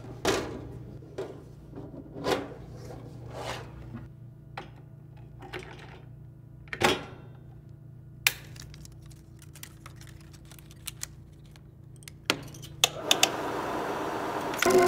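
A film reel being handled and fitted onto a reel-to-reel film projector: a series of knocks and scrapes, then several sharp clicks of the projector's parts. About thirteen seconds in, the projector starts running with a steady whirr.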